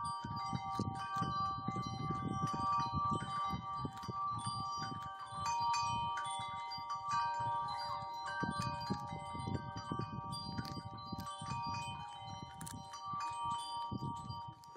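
A cat chewing on a mole's head, crunching irregularly, while chimes ring steadily behind it.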